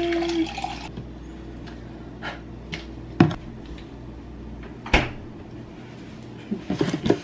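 Water pouring from a filter pitcher into a cup, followed by scattered clicks and knocks from handling things on the counter. About five seconds in, a refrigerator door is shut with a sharp thud, and a low hum stops at the same moment.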